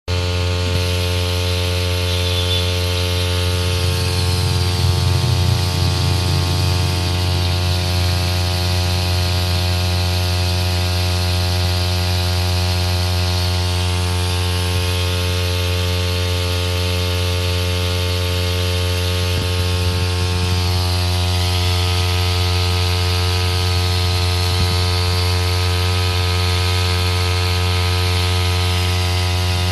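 Small brush cutter engine running at a steady, unchanging speed while it drives a water pump attachment.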